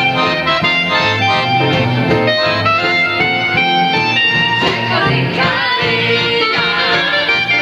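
Live band music: a saxophone plays a melody over a steady, repeating bass line.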